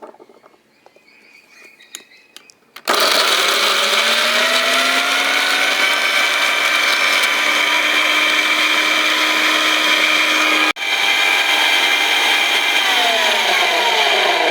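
Electric mixer grinder (mixie) grinding ginger. After a few light clicks, the motor starts about three seconds in with a rising whine and runs steady. It breaks off for an instant near eleven seconds, then its pitch drops near the end.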